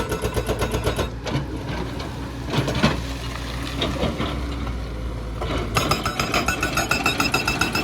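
Excavator-mounted hydraulic breaker hammering with rapid, even blows over a diesel engine. The hammering stops about a second in, leaving the engine running with a few knocks, and starts again near the end.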